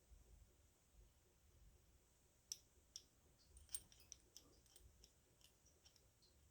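Near silence broken by scattered faint clicks and ticks, the clearest about two and a half seconds in, from small parts being handled during hand assembly.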